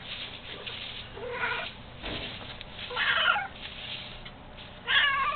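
Kitten meowing three times, each call short and plaintive, the second and third the loudest.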